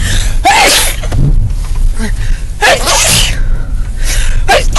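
Inside an SUV driving off-road over snow: a steady low rumble of engine and tyres, broken three times by loud rushing bursts with short yelps from the occupants.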